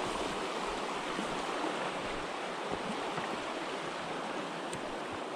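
Fast, shallow mountain river rushing over rocks and riffles: a steady wash of running water.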